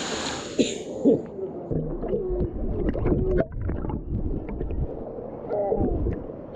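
Camera going under the water of a gorge pool: the hiss of falling water cuts off about half a second in. It gives way to muffled underwater gurgling, bubbling and sloshing, with short wavering tones and clicks.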